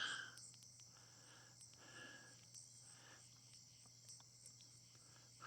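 Faint chorus of night crickets chirping steadily, with a few faint clicks scattered through it.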